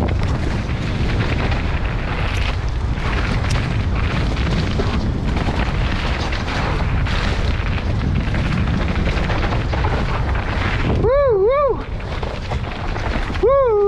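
Mountain bike ridden fast down a dirt forest trail, heard from a helmet camera: heavy wind buffeting on the microphone over the rumble and rattle of the bike on the ground. Near the end come two short, wavering, pitched calls, the second one about two seconds after the first.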